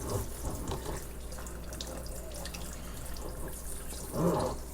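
Tap water running steadily into a tub during a dog's bath, with a brief louder sound about four seconds in.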